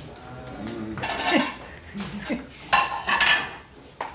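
Forks or spoons clinking and scraping on plates in two short clusters, about a second in and again near three seconds.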